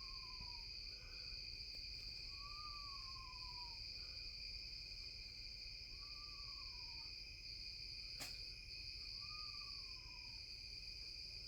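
An unidentified night animal calling: a clear, whistle-like cry that rises briefly and then slides down in pitch over about a second, repeated every three seconds or so.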